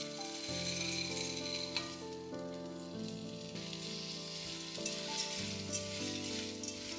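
Frozen green peas poured into a hot pot of softened onion and oil, sizzling as they land, then stirred with a spatula near the end. Soft background music runs underneath.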